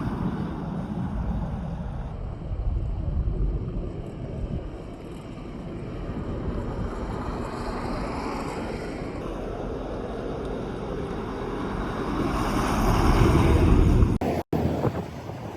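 Wind buffeting the microphone over the wash of sea surf, a steady noisy rumble that swells louder near the end, then cuts briefly.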